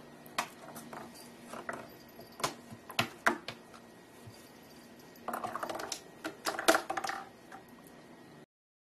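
A cat stirring on a shelf: irregular light clicks and taps, with a busier run of tapping about five to seven seconds in.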